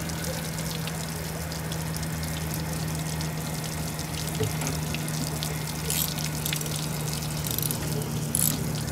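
Water hissing and dribbling from a leak in a 2-inch steel pipe under a partly tightened patch clamp, over a steady low hum. A few short clicking bursts in the last three seconds as the clamp's nuts are run down with a socket ratchet.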